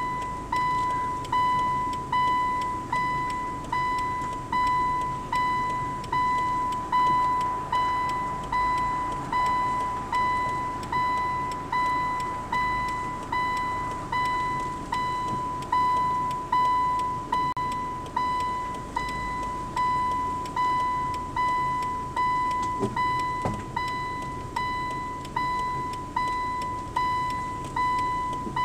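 Car's warning chime dinging over and over, about one and a half dings a second, each with a sharp start and a quick fade, over the low rumble of the engine.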